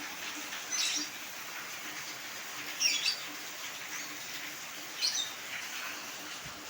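A bird giving short, high chirping calls three times, about two seconds apart, over the steady hiss of falling rain.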